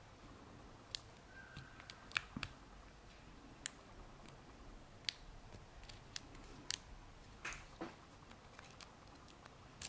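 Faint, irregular clicks of a lock pick setting the pins of a small four-pin ABUS 65/30 brass padlock, with a couple of short scraping sounds near the end.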